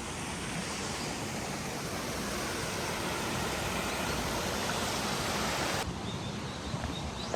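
A steady rushing hiss that swells slightly, then drops suddenly to a quieter hiss about six seconds in.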